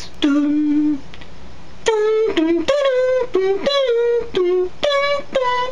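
A man hums and sings the ice-cream vendor's jingle, imitating an old mobile ringtone. One held note comes first, then after a short pause a quick tune of short notes.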